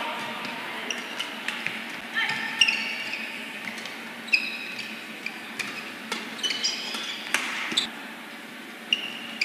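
Badminton rally: rackets hit the shuttlecock in sharp cracks about every half second to second, with short high squeaks of court shoes on the mat between the shots.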